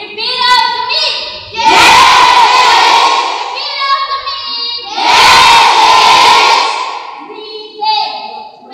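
A class of students shouting together in two loud bursts, each one coming after a single voice calls out, in a call-and-response pattern.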